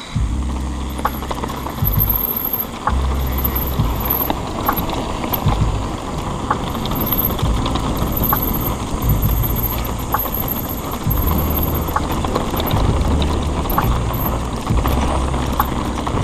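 Mountain bike ridden over a rough trail: wind buffets the microphone in low gusts, and the bike clatters with light knocks about once a second as it goes over bumps.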